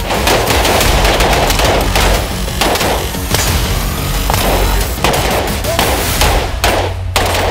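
Rapid AR-15 rifle fire: many sharp shots in quick, irregular succession. The shots thin out to a few separate ones near the end.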